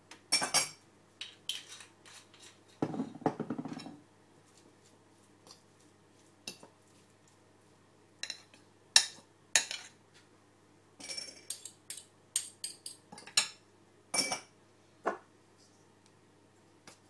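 Metal fork clinking and scraping against a ceramic bowl while a leafy salad is tossed, in irregular sharp clicks, with a short rustle of leaves about three seconds in.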